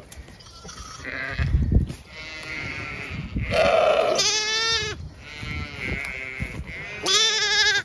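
Newborn Zwartbles lamb bleating, two loud high quavering calls with fainter ones between, a lamb calling for its ewe.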